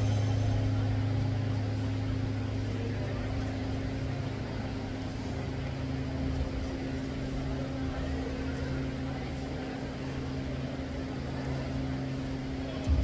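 Steady low droning hum made of a few constant low tones, a little louder in the first few seconds.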